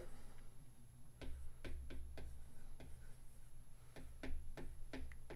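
About a dozen faint, light taps in an irregular rhythm on an iPad Pro's matte paper-feel screen protector.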